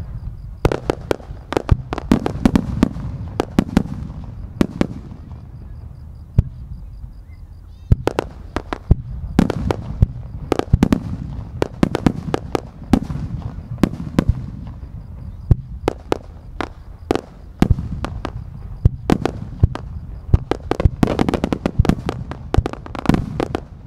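Fireworks barrage: aerial shells bursting in quick succession, sharp bangs over a low rumble. The bangs thin out about five seconds in, then come thick and fast again from about eight seconds in.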